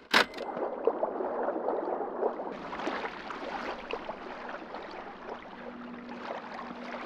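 A sharp click, then a steady crackling wash of moving water that grows hissier about two and a half seconds in.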